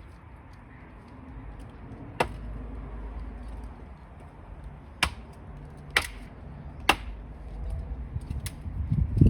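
Four sharp clicks of hand tools working the outlet's wires, spaced a second or more apart, with handling noise building near the end over a low rumble.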